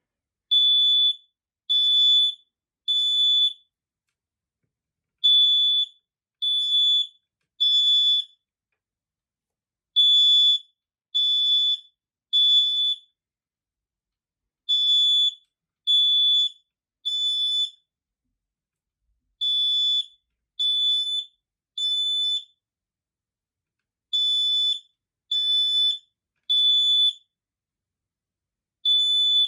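Smoke alarm sounding under test: a high-pitched beep in groups of three, each group followed by a pause of about a second and a half, repeating over and over. This is the standard three-beep evacuation pattern of a smoke alarm.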